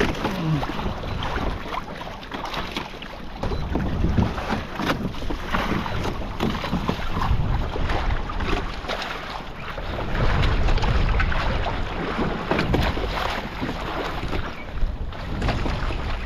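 Wind buffeting the microphone over choppy sea, with waves slapping and splashing irregularly against a kayak. A strong gust swells about ten seconds in.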